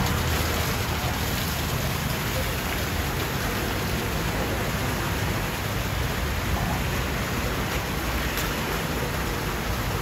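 Steady rush of splashing water, even and unbroken.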